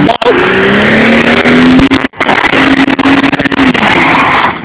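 Holden VT Commodore held at high revs during a burnout, its rear tyres spinning and screeching against the pavement, with the engine note easing off near the end. The recording cuts out briefly about two seconds in.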